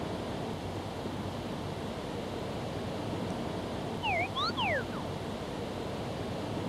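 Steady wind rushing over the microphone in an open grassy field. About four seconds in, a brief run of four or five quick chirp-like glides, dipping and rising, cuts through for under a second.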